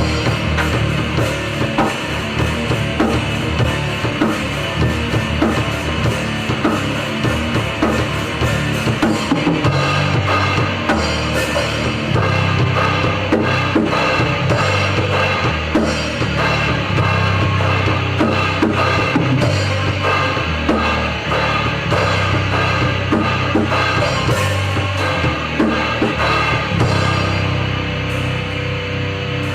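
A rock band playing live in a rehearsal, loud and continuous, with the drum kit and its bass drum to the fore.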